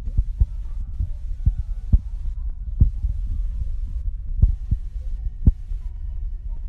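A heavy low rumble with irregular, sharp dull thumps every half second or so.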